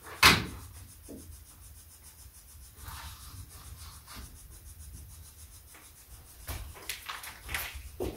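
Spirit box sweeping through radio stations, giving a faint hiss of chopped static at an even rapid rhythm. A sharp click comes just after the start, and a few louder bursts of static near the end.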